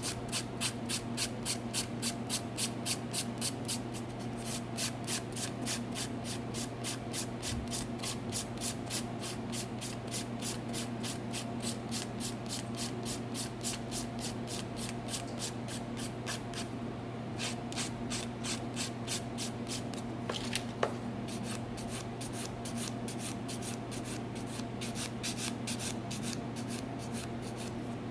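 Electric nail drill humming steadily while its bit grinds gel off a fingernail in quick, regular scratching strokes. One short sharp tick about twenty seconds in.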